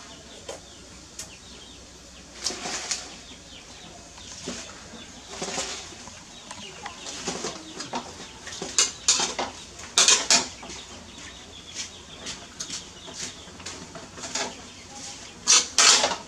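Metal spatula scraping and clanking against a wok while stir-frying greens, in irregular strokes that come thickest about ten seconds in and near the end.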